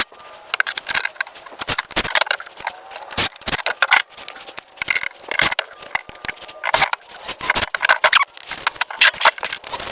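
Sped-up sound of a power cord reel being put together by hand: a fast, irregular run of clicks, taps and clatter of parts and screws, pitched up.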